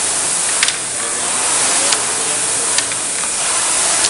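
Air-resistance rowing machine's fan flywheel giving a steady whooshing rush of air as it is rowed, with a few light clicks.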